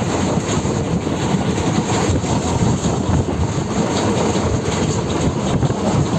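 Moving passenger train heard from inside the carriage: a steady, loud rumble of the wheels running on the track, with wind buffeting the microphone at the window.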